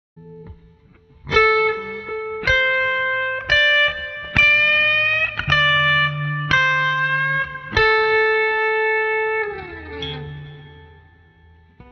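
Electric guitar playing a slow blues lead lick in mixed major/minor pentatonic: single picked notes about a second apart, one bent slightly up in pitch, ending in a slide down the neck as the last note fades.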